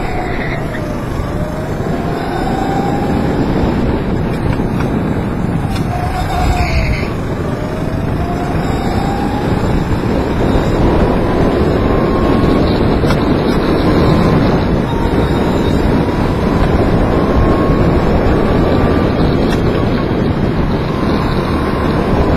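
Go-kart engine running at speed, heard from the driver's seat through heavy wind noise on the microphone. Its pitch dips twice as it slows for corners, then climbs gradually for a long stretch as it accelerates.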